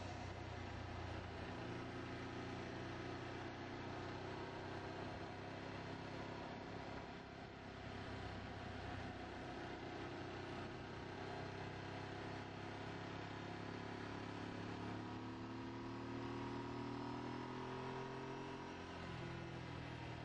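Sports motorcycle engine heard from a tank-mounted camera while riding, its revs rising and falling through the bends, under a steady rush of wind noise. It eases off briefly about seven seconds in.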